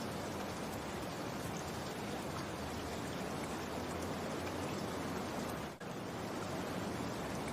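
Steady rain, an even hiss with scattered drops. It dips for an instant about six seconds in.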